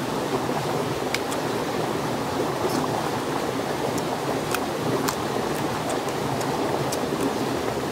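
Steady rushing noise like running water, with a few faint crisp clicks of boiled crab shell being picked apart by hand.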